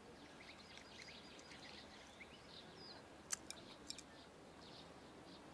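Near silence with faint bird chirps in the background, and a few light clicks of chopsticks against a bowl a little after three seconds in.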